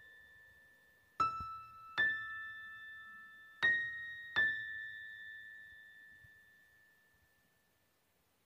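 Background music: four bell-like keyboard notes struck in two pairs, each ringing on and slowly fading away.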